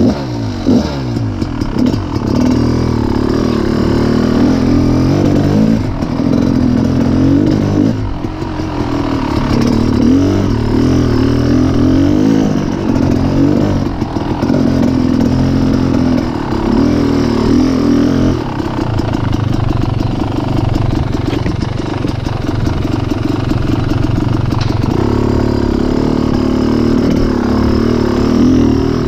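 Dirt bike engine being ridden over rough trail, its pitch rising and falling with the throttle through the first two-thirds, then holding steadier for a stretch before picking up again near the end.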